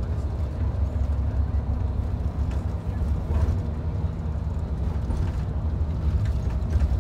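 Steady low rumble of a moving vehicle, heard from on board as it travels.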